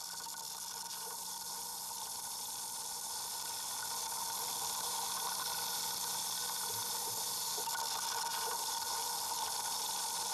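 Underwater sound at a pahoehoe lava flow front forming pillow lava: a steady water-like hiss and rushing that grows slightly louder, over a faint steady low hum.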